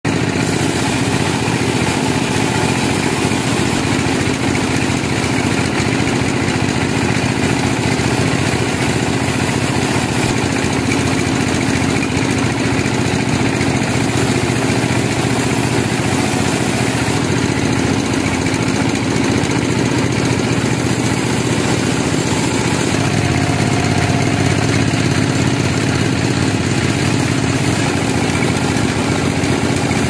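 Vertical band sawmill running steadily, its blade cutting lengthwise through a log: a continuous mechanical drone.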